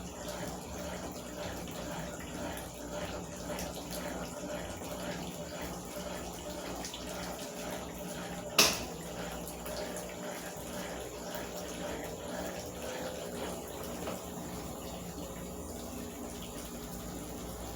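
Consul washing machine draining: water running steadily, with a low steady hum from the machine. One sharp click comes about halfway through.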